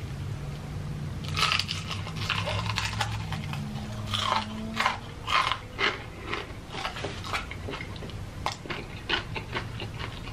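Close-miked bites into crispy-battered Popeyes fried chicken, a run of loud crunches for a few seconds, then wet chewing with scattered smaller crunches and mouth clicks. A low steady hum sits under the first half.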